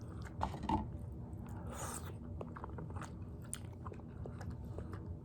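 Close-miked chewing of a mouthful of spicy tteokbokki: many small wet mouth clicks and smacks, with a few louder bites about half a second in and a short breathy rush of air about two seconds in.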